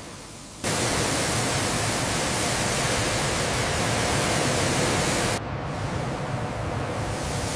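A steady rushing hiss across the whole range that cuts in abruptly about half a second in. About five seconds in it drops somewhat in level and carries on more quietly.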